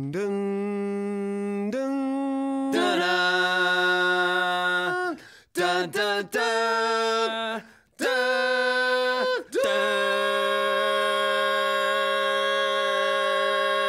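Voices singing an unaccompanied a cappella jingle, holding long notes that step from one pitch to the next, with a few short breaks and a long held final note.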